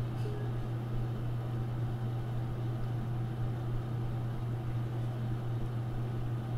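A steady low hum with a faint hiss over it, unchanging throughout.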